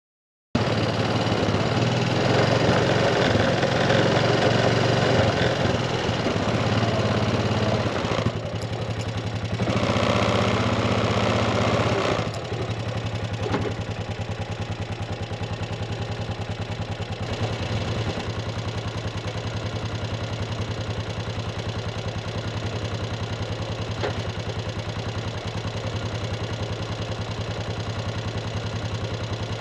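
An engine running, cutting in suddenly about half a second in. It is louder and busier for the first twelve seconds, then drops to a steady, lower idle.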